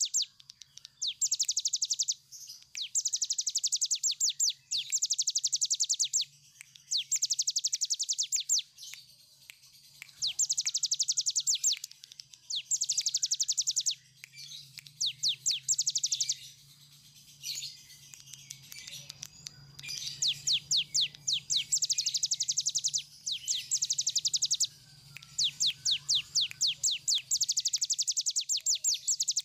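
Caged brown prinia (cigun) singing a long rapid trill song: over a dozen bouts of fast, evenly repeated high notes, each about one to two seconds long, separated by short pauses.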